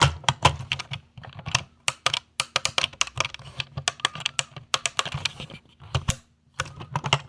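Plastic clicking of a drone remote controller's buttons and sticks being worked: many sharp, irregular clicks, several a second, with a short pause about six seconds in.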